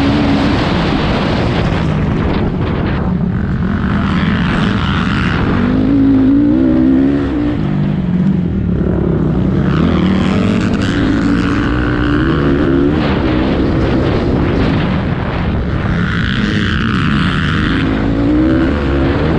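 Racing motorcycle engines running hard, the engine note rising and falling with throttle and gear changes, with a harsher, brighter stretch every few seconds.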